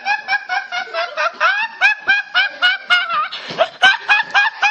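Rapid, evenly paced laughter, about four to five short bursts a second, with a brief break about three and a half seconds in.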